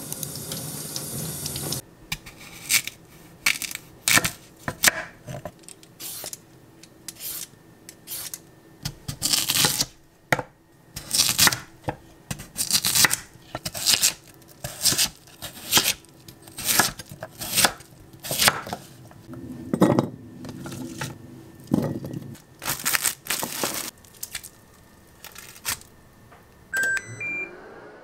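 Daikon radish being prepared by hand in the kitchen: a run of irregular strokes, about one or two a second, with a couple of heavier thuds partway through. Near the end comes a short series of rising electronic appliance beeps.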